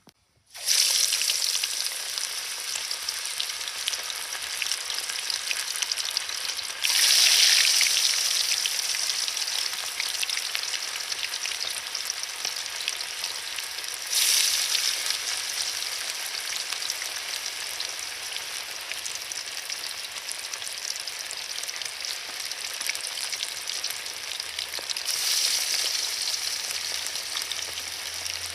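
Fish frying in hot oil, a steady loud sizzle. It jumps suddenly louder three times, then eases back down each time.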